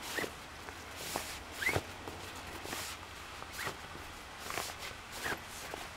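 Camping cot's fabric bed being slid off its aluminium side pole, in a series of short rustling swishes about once a second, some with a brief rising squeak of fabric on metal.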